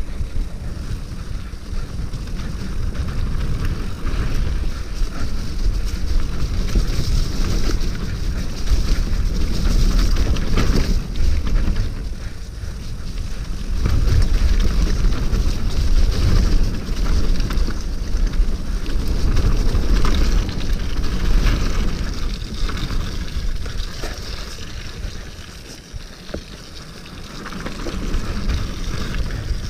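Steel hardtail 29er mountain bike ridden fast down a frozen trail. Tyres run over the icy dirt, the bike clatters with frequent clicks and rattles, and heavy wind buffets the camera microphone. The noise eases for a few seconds near the end.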